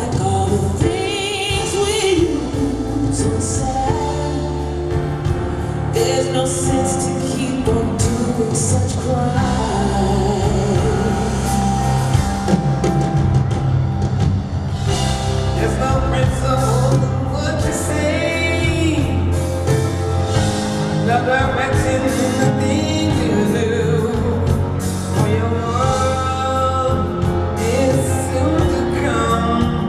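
Live band music with a woman singing the lead melody over keyboards and drums, amplified through a large arena's sound system.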